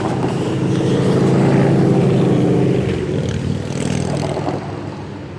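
A heavy engine running close by, loudest in the first three seconds and then fading away.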